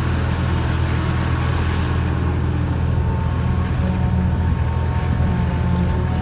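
John Deere forage harvester running steadily while chopping a cover crop for silage: a deep, even diesel drone with a faint steady whine above it.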